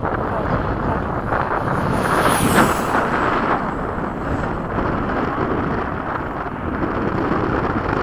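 Wind buffeting the microphone, with a 70 mm electric ducted fan jet passing about two seconds in: its high fan whine drops in pitch as it goes by.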